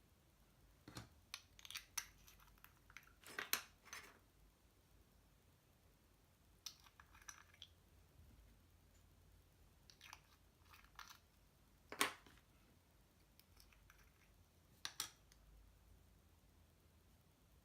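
Slime being handled, giving scattered clusters of small crackling clicks and pops, with one sharper pop about twelve seconds in.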